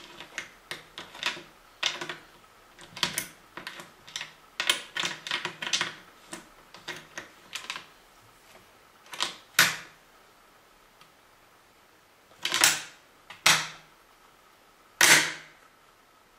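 Mosin-Nagant M44 rifle being handled: a quick run of sharp metallic clicks and clacks, then, in the second half, four louder single clacks spaced a second or more apart.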